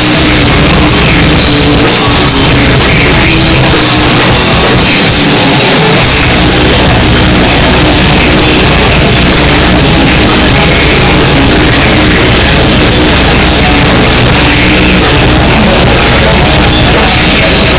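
Melodic death metal band playing live, heard through an overloaded phone microphone: a dense, distorted wall of guitars and drums held at a constant, clipped loudness. The deepest bass thins out briefly a few seconds in.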